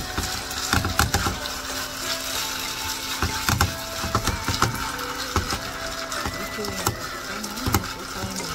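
A utensil scraping and tapping against a nonstick frying pan in irregular knocks as grated-potato batter is spread and pressed flat, over a faint sizzle of frying oil.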